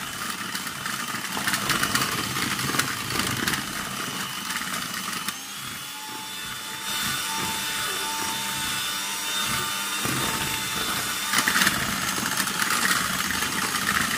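Electric hand mixer running steadily, its beaters whirring through butter and icing sugar as they are creamed into buttercream frosting.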